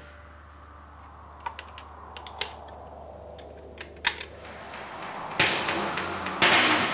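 Scattered clicks and knocks from a record turntable being handled, over a low steady hum. About five seconds in a loud rushing noise sets in sharply, and it jumps louder again near the end.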